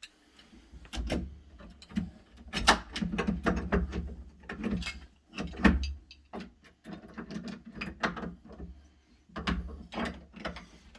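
Doorknob parts being handled and fitted into a door: irregular metal clicks, clinks and knocks as the two knob halves and the latch are lined up through the bore.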